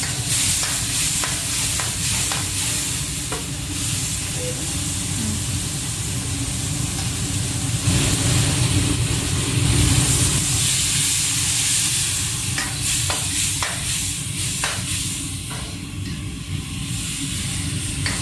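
Pork slices sizzling in a hot wok while a metal spatula stirs and turns them, with short clicks of the spatula against the wok now and then, several of them after about 12 seconds.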